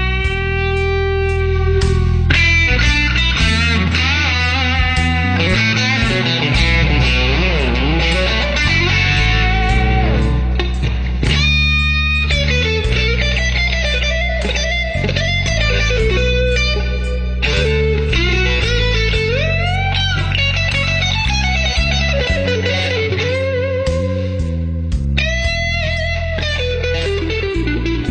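Electric guitar played through a digital effects unit, a lead line of sustained notes with string bends and vibrato over a stepping bass line.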